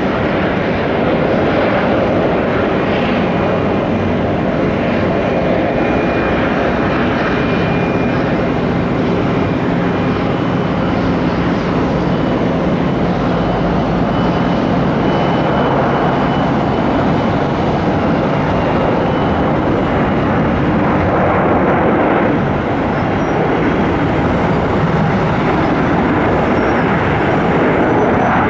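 Boeing 737-8 MAX's CFM LEAP-1B turbofan engines during landing: a steady, loud jet roar, with a faint high whine that comes and goes.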